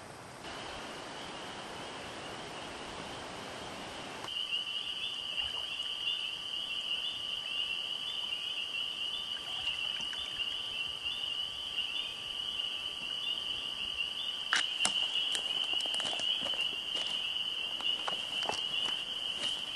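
A steady hiss for about four seconds, then a chorus of crickets at night: a continuous high, pulsing trill. From about fifteen seconds in there are scattered sharp clicks and knocks.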